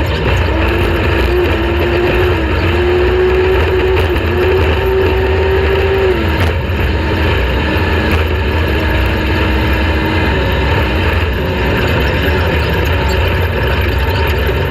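Off-road race vehicle's engine running hard, its pitch holding, then dipping and rising again several times as the throttle comes off and on, over a heavy low rumble.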